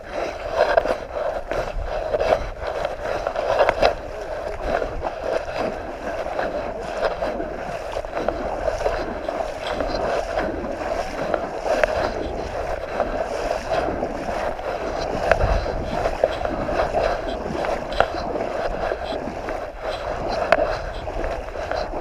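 Small boat's outboard motor running steadily at a constant pitch.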